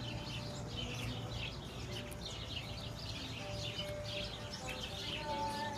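Songbirds chirping in a busy chorus of short, quickly repeated high calls, with faint held musical tones beneath that grow stronger near the end.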